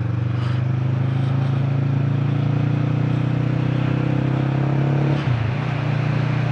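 Motorcycle engine running steadily under way, with rushing wind and road noise. About five seconds in the engine note briefly dips and then settles again, as in a gear change.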